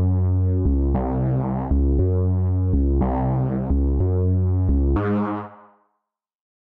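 Analog-style synthesizer chords over a deep bass note, played from a Maschine drum controller's pads. The chords change about every second, then fade out about five and a half seconds in.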